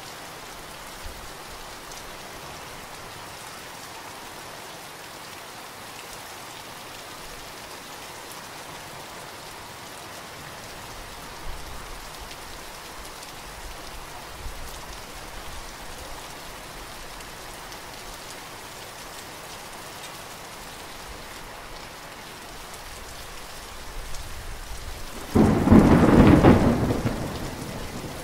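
Steady heavy rain splashing into puddles on the ground. Near the end, a loud clap of thunder breaks in and rumbles away.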